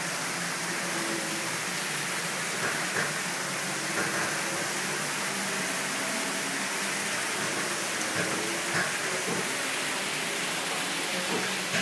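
Steady rushing of water in a cave, an even hiss with a few faint knocks over it.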